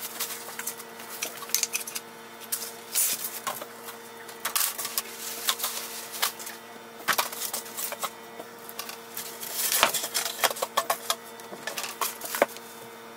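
Thin white packing wrap rustling and crinkling as it is pulled off the crib parts in their cardboard box, with many irregular sharp crackles.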